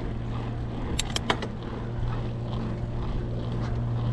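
Steady low hum and rumble of a mountain bike rolling on a paved path, with a few sharp clicks about a second in.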